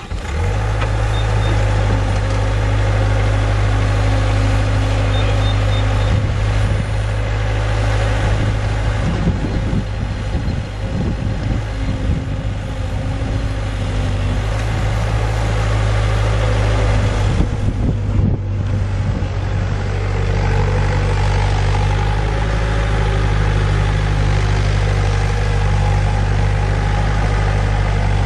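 2005 Bobcat S175 skid steer's diesel engine running steadily, its note changing about twenty seconds in.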